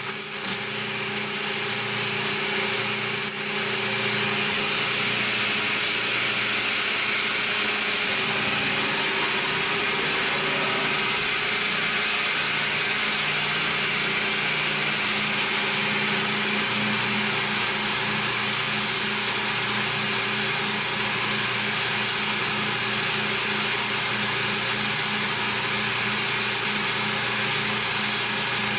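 CNC milling machine cutting a part: a steady spindle whine over continuous cutting noise. Past the middle, a low hum in it begins to pulse rapidly.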